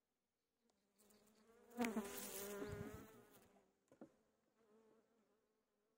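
Honeybees buzzing close to the microphone: a wavering buzz swells for about two seconds from about a second and a half in, from bees roused by having their frames moved. A single sharp click comes near the four-second mark.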